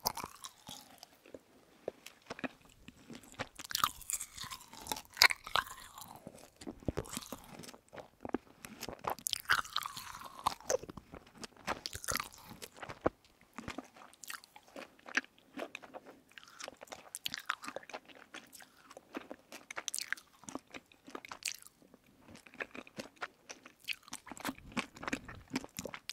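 Close-miked chewing of soft candy: wet, sticky mouth clicks and small crunches, coming irregularly.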